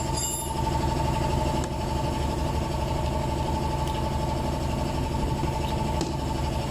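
A motor runs steadily with a low hum and a constant high whine, unchanged throughout.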